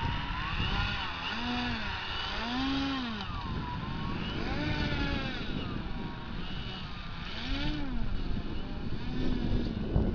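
Engine of a Balsa USA Smoothie radio-controlled model airplane running as the plane rolls across the grass, its pitch rising and falling several times. Wind rumbles on the microphone.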